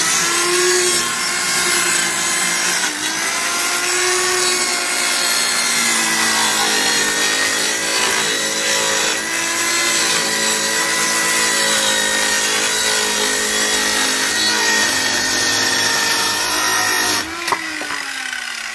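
Circular saw cutting through a wooden board, its motor running steadily under load. Near the end it is switched off and the blade spins down in a falling whine.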